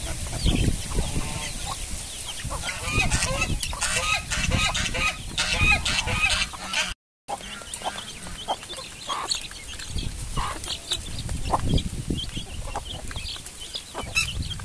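Chickens clucking, with wind rumbling on the microphone. After a brief break, many short, high peeps and clucks from a group of chicks and fowl.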